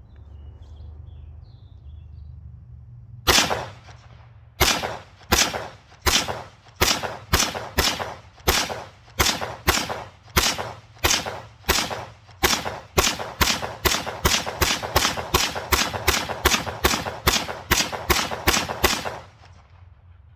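AR-15 rifle firing a full 30-round magazine semi-automatically, one shot per trigger pull. The shots start about three seconds in at an even pace, come faster about halfway through, and stop shortly before the end.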